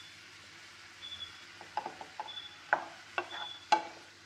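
A wooden spatula stirring squid rings in a nonstick frying pan. It knocks against the pan about six times in the second half, two or three knocks a second, with quiet scraping between.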